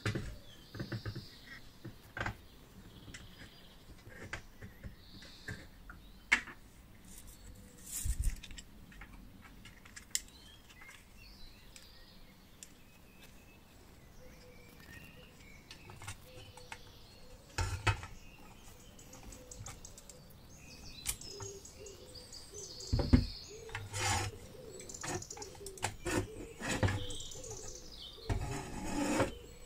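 Scattered clicks, taps and light knocks of small metal and plastic camping-stove parts being handled and fitted together, including a screwdriver driving a screw into a plastic vent grille. Short bird chirps sound now and then in the background.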